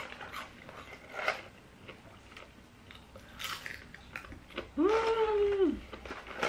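Chewing and biting on fries, with small scattered mouth clicks and crunches. About five seconds in, a pitched sound of about a second, held level and then sliding down at its end, is the loudest thing heard.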